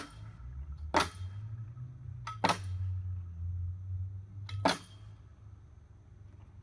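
Metal bar of a backyard salmon ladder clanging onto the pegs of its wooden posts as it is jumped up rung by rung: four sharp metallic strikes about one to two seconds apart, most with a faint click just before.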